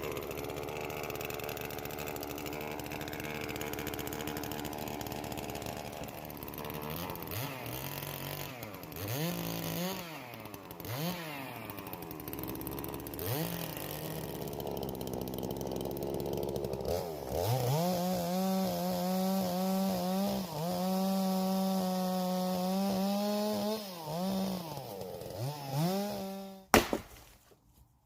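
Chainsaw idling and revved up and down several times, then held at high revs for about six seconds while bucking walnut offcuts, before dropping back. A sharp click near the end, after which the sound cuts off.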